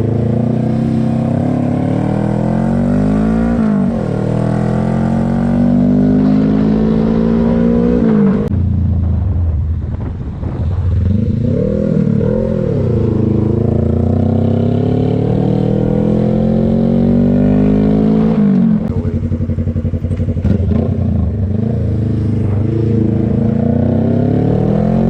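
Suzuki GSX250R's 248 cc parallel-twin engine under way, climbing in pitch through each gear with drops at the gear changes about 4, 8 and 19 seconds in, and easing off for a moment around 10 seconds before pulling again.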